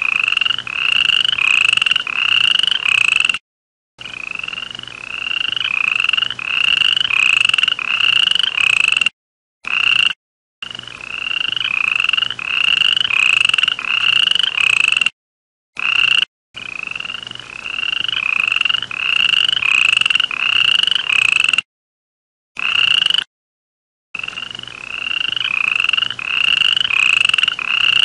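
Frog calling: a run of short, rising notes about two a second, each run growing louder. The call is cut off abruptly by short gaps of dead silence several times.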